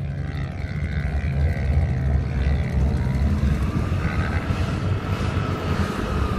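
Pickup truck engine running hard under load as the truck climbs a steep sand dune in four-wheel-drive high range. The low rumble is steady, and in the second half a whine rises and then falls.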